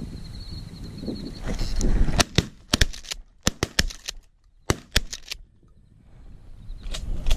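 A rapid string of shotgun shots from several hunters' guns, about a dozen sharp reports of differing loudness packed into roughly three seconds, starting about two seconds in.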